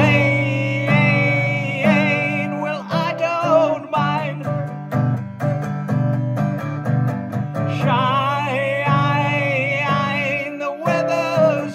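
Strummed acoustic guitar playing a steady chord pattern, with a bending, wavering lead melody over it in phrases.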